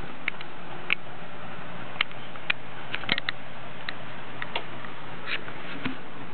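Light clicks and taps at uneven intervals, about a dozen, as a harnessed cat moves about on a hard floor, over a steady faint hiss.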